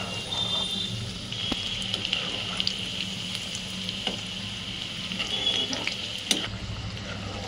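Spice-coated potato pieces deep-frying in hot oil on high heat: a steady sizzle, the pieces turning golden and nearly done. A metal slotted spoon stirring them gives a few sharp taps, the loudest a little past six seconds in.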